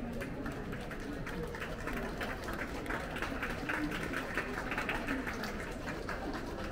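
A crowd clapping, with voices chattering underneath; the clapping grows denser about two seconds in and thins out near the end.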